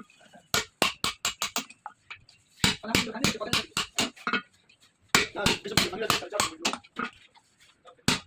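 Rapid runs of sharp clicks and knocks, in three bursts of one to two seconds each with short pauses between.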